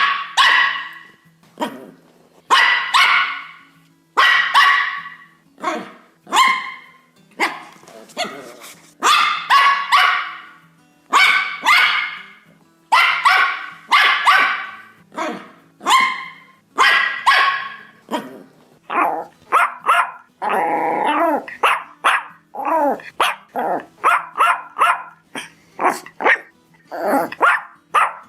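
A dog barking repeatedly, loud single and double barks about once a second. About two-thirds of the way in, the barks turn shorter and quicker, broken once by a longer drawn-out sound.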